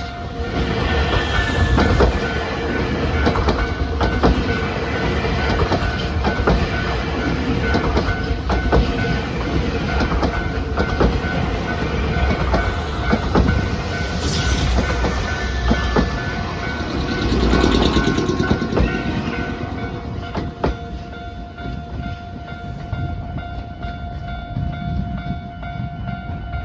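A Nankai Railway electric train passes over a level crossing, its wheels clicking repeatedly over the rail joints. Under it, the crossing's warning bell rings on as a steady, repeating tone.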